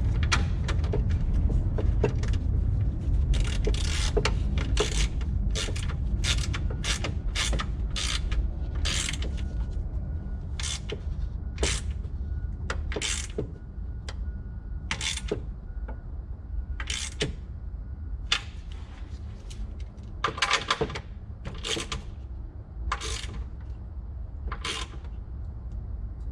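Ratchet wrench clicking in short strokes as nuts are tightened, with brief pauses between strokes, over a steady low rumble.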